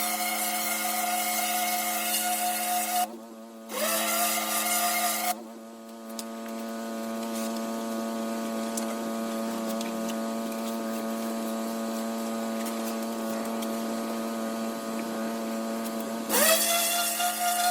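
Pressure washer running steadily with its spray jetting onto brick. The spray shuts off about 3 seconds in, bursts on again for about a second and a half, then stops while the machine keeps humming. Near the end the spray comes back on with a brief rise in pitch.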